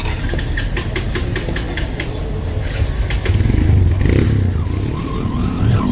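A motorcycle engine running with a steady low rumble that swells about two thirds of the way in. Many light, irregular metallic clicks and clinks sound over it.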